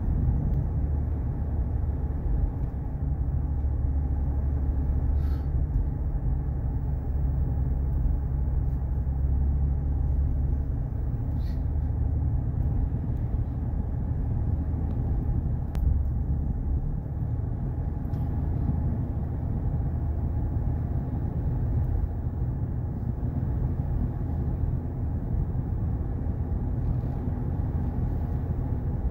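Steady low rumble of a moving car heard from inside its cabin: engine and tyre noise on the road, with a few faint clicks.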